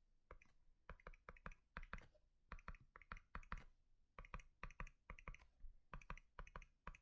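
Faint quick clicking, several sharp clicks a second in uneven runs, typical of typing or tapping on a computer.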